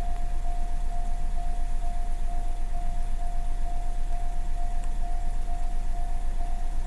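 Japanese railway level-crossing alarm ringing: one electronic tone struck over and over, about twice a second, the warning that a train is coming. A steady low rumble sits underneath.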